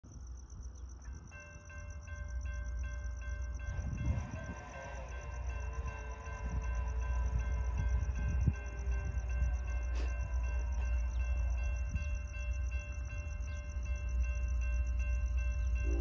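A railroad crossing warning bell starts ringing about a second in, a quick, even ding, over a low rumble that grows as a Union Pacific freight train approaches. Insects buzz steadily and high. A sound falling in pitch passes from about four to nine seconds in.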